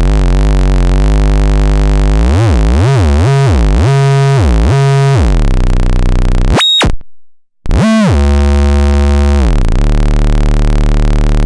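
Homemade CEM3340 voltage-controlled oscillator giving a raw synth tone whose pitch wobbles up and down, about twice a second at first. Past the middle it sweeps sharply up and cuts out for about half a second. It then returns high and glides down to a steady low drone.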